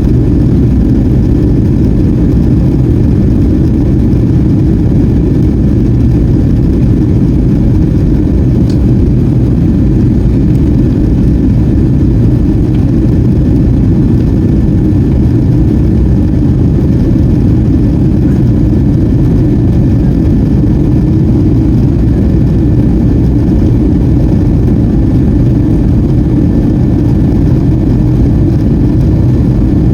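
Steady, loud cabin noise inside a Boeing 757-200 during departure: the jet engines' low rumble mixed with airflow, holding an even level throughout.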